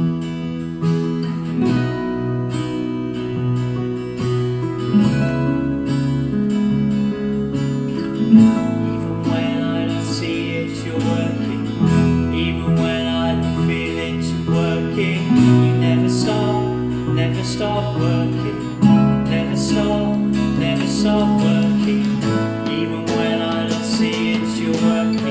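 Worship band playing: strummed acoustic guitar, piano, bass guitar and electronic drums, with a woman singing the lead.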